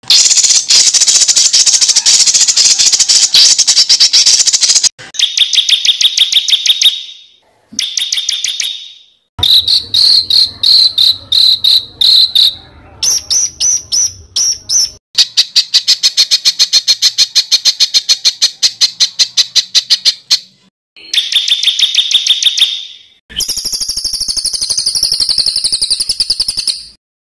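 Spliced recordings of songbirds giving very fast, rapid-fire high-pitched trills. The song comes in about eight separate bouts that each cut off abruptly before the next begins.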